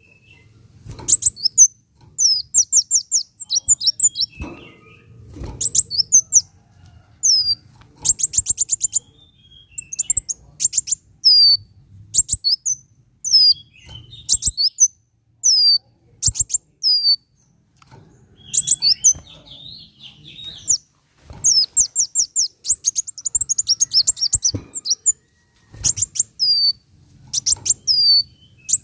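Kolibri wulung sunbird singing: short bursts of rapid, high, sharp chirps and quick downward-sweeping notes, broken by brief pauses, with two denser trilled runs partway through.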